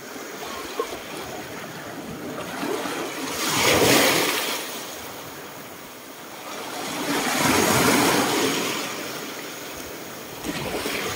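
Small sea waves washing in and out over a pebble shore, the wash swelling and fading twice, about four seconds apart, with another swell starting near the end.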